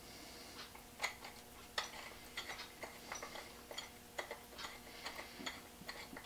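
Irregular light clicks and taps, with faint rubbing between them, as a wooden two-man saw handle and its fittings are handled and fitted together by hand.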